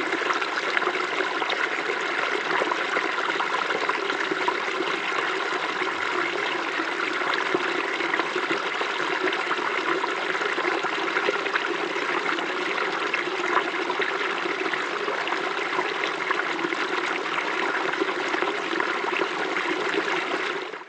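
Waterfall: a steady, even rush of falling water, fading out at the very end.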